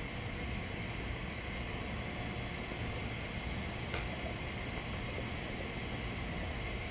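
TIG welding arc on a carbon steel pipe root pass at about 100 amps: a steady, even hiss with argon shielding gas flowing, and a faint click about four seconds in.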